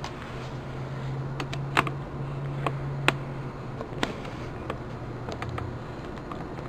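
Handling noise from a camera being moved and re-aimed: a few light clicks and knocks, over a steady low hum that fades out past the middle.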